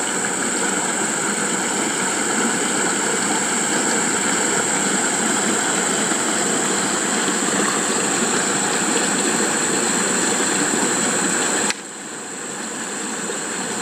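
Water pouring out of a culvert pipe into a pond, a steady rushing splash. It drops suddenly about twelve seconds in, then slowly builds back.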